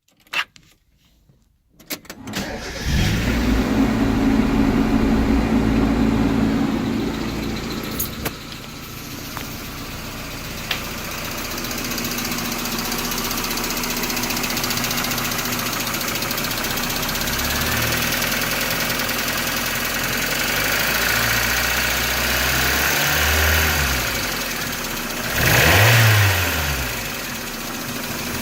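Car engine starting about two seconds in, running at a fast idle that settles to a steady idle, then revved twice near the end. It makes a ticking or knocking noise that the owner cannot place as lifter tick or rod knock.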